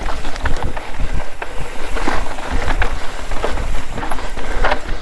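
Mountain bike rattling and clattering over a rough, dry dirt trail at speed, with irregular sharp knocks as the tyres hit bumps and rocks. Wind rumbles on the microphone throughout.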